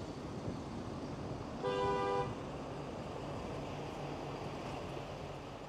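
A car horn honks once, briefly, about a second and a half in, two notes sounding together, over the steady noise of street traffic.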